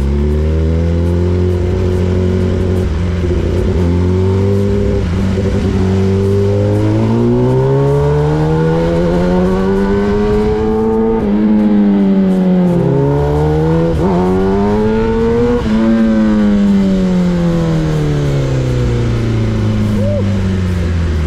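Motorcycle engine heard from on the bike while riding: it holds a steady note, then its revs climb over several seconds, dip briefly, climb again, and fall away steadily over the last few seconds as the bike slows.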